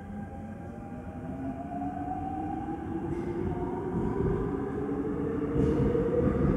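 Seoul Subway Line 5 train pulling away from a station, heard inside the passenger car. The traction motor whine rises steadily in pitch in several tones as the train accelerates, and the rolling rumble grows louder.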